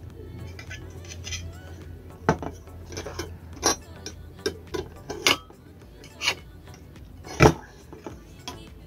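Scattered metallic clicks and clinks of a screwdriver, screw and nut working against a thin aluminium plate as a coaxial cable core is screwed onto it, with the sharpest click about seven and a half seconds in.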